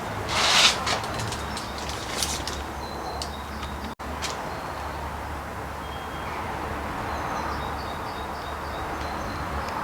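Birds chirping in short high calls, twice in little runs, over a steady low hum. A brief hiss comes about half a second in, with a few faint clicks after it.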